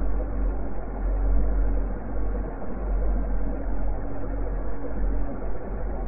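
Invented 'exoplanet sound' space ambience: a steady deep rumble with a rough, noisy wash above it and a faint hum running through.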